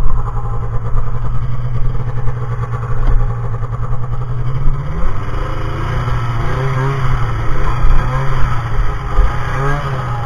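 Snowmobile engine idling steadily, then revved in several short blips from about halfway through, its pitch rising and falling each time.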